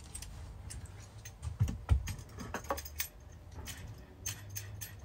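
Small metal table swivel vise being handled: scattered light metallic clicks and clinks as its loose parts and handle knock together, with a couple of duller knocks a little under two seconds in.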